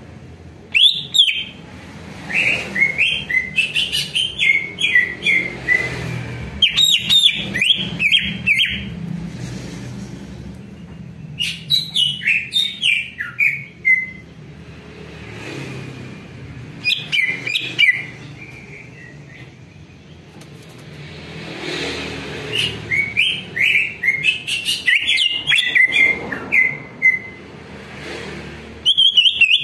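Cucak ijo (green leafbird) singing in bouts of rapid, varied whistled notes that jump up and down in pitch, mixed with sharp clicks, with pauses of a few seconds between bouts.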